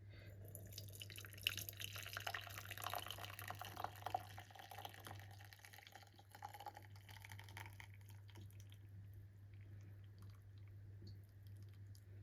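Milk boiled with onion being poured through a strainer, trickling and dripping into the container below. The flow thins to scattered drips after about eight seconds.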